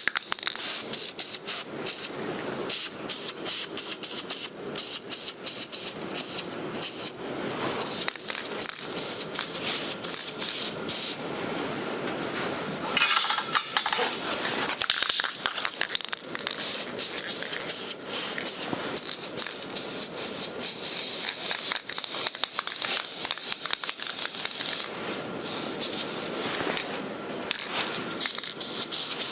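Aerosol spray-paint can hissing in many short bursts and a few longer passes.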